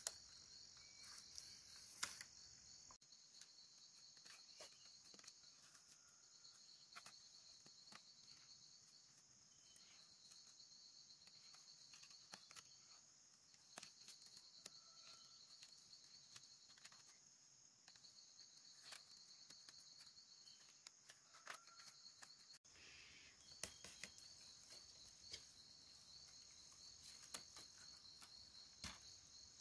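Faint crickets and other insects chirping: a pulsing high trill that stops and restarts every few seconds over a steadier high buzz. Many light clicks and taps are scattered throughout and are the loudest sounds.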